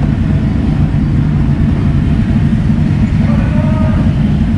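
Motorcycle engine running steadily with a low, even rumble.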